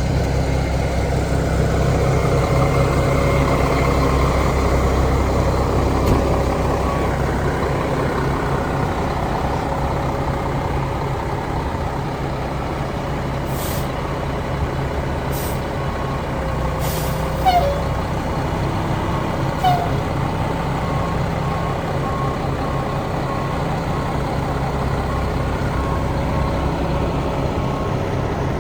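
Heavy diesel truck engine idling with a steady low rumble; a few short, sharp hisses sound around the middle, and a reversing alarm beeps regularly through the last third.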